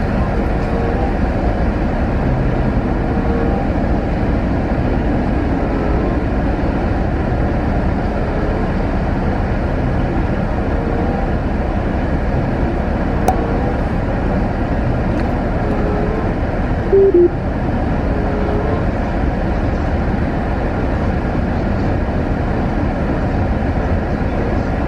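Steady low rumble of a car idling, heard from inside the cabin, with a short two-note tone about 17 seconds in.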